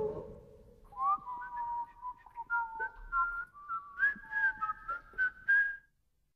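Whistling: a short tune of held notes, mostly in two parts moving in steps, with a few short clicks among them. It stops abruptly near the end.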